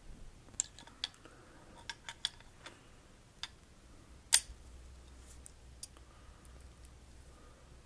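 Scattered small metallic clicks and taps as a stainless Ruger Single-Six revolver's .22 Magnum cylinder is handled and fitted into the frame, with one sharper click a little past four seconds in.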